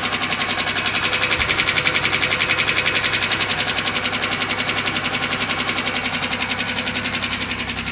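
2005 Chevy Equinox's 3.4-litre V6 idling just after a cold start with a loud, rapid, even knocking, about nine knocks a second, easing a little near the end. The knock comes only when the engine is cold and clears once it warms up.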